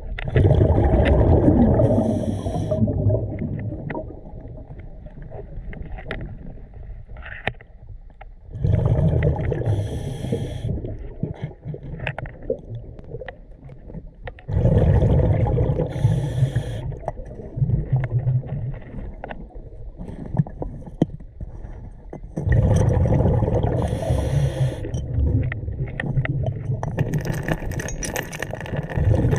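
Scuba diver's exhaled bubbles from the regulator, bubbling loudly past the camera underwater in four surges roughly six to eight seconds apart, with quieter stretches between them; the last surge lasts longest.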